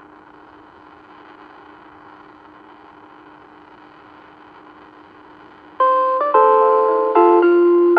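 Outdoor disaster-prevention PA loudspeaker, switched on and carrying a steady hiss with a faint hum, noise the recordist puts down to poor radio reception. About six seconds in, the noon chime starts loud: a town-anthem melody in TOA's old electronic chime arrangement.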